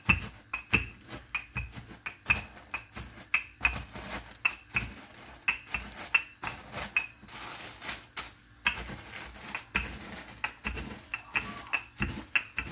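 Digestive biscuits in a plastic bag being crushed under a wooden rolling pin: an irregular run of sharp cracks and crunches, several a second, as the biscuits break down into crumbs.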